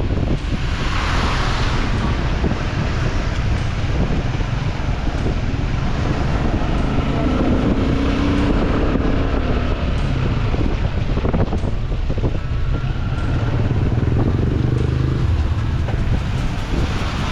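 Car driving along a road: steady engine and tyre rumble with wind on the microphone, and a short rushing hiss about a second in.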